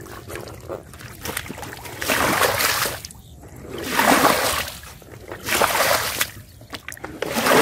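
Muddy water being scooped up with a plastic basin and flung out onto wet mud, making a splash about every one and a half seconds: four splashes, beginning about two seconds in.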